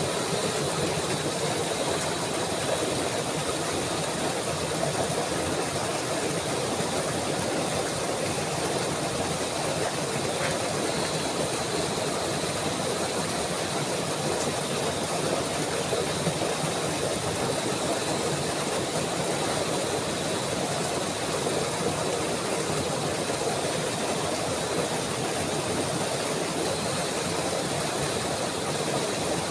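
Flowing water rushing steadily with an even, unchanging sound.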